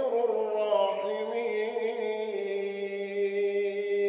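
A man's voice chanting Quran recitation in a melodic tajweed style, drawing out a phrase that settles into one long held note.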